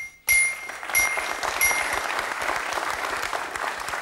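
Game-show puzzle-board chime rings three times about two-thirds of a second apart, each ding marking a letter A lighting up on the board, over studio audience applause.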